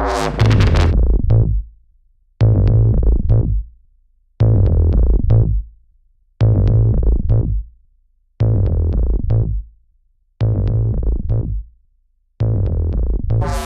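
Electronic dubstep-style music: a heavy synth bass phrase over a drum-machine beat, stopping short about every two seconds with a brief gap before it repeats.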